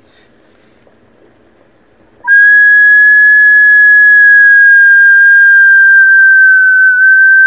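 Stovetop kettle whistling at the boil: one steady high note that comes in suddenly about two seconds in and holds, drifting slightly lower.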